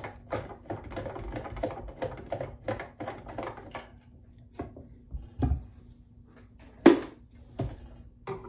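A screwdriver backing screws out of a sewing machine's plastic housing: dense small clicks for about four seconds, then scattered clicks with one sharper knock about seven seconds in.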